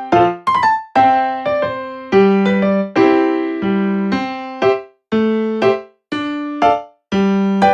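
Background music: a piano-like keyboard playing a gentle melody of single struck notes and chords, about two a second, each note dying away before the next.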